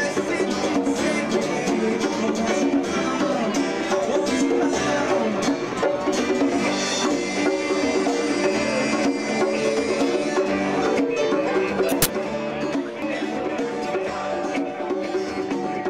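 Live band music led by a picked acoustic guitar, with electric guitar and hand drums, playing steadily. A sharp click about twelve seconds in, after which the music is a little quieter.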